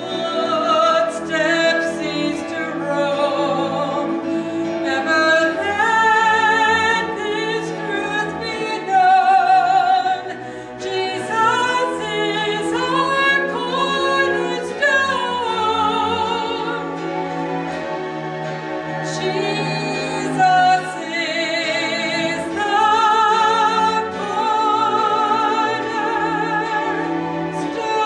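A woman singing a slow Christian worship song solo, holding long notes with vibrato, over sustained instrumental accompaniment.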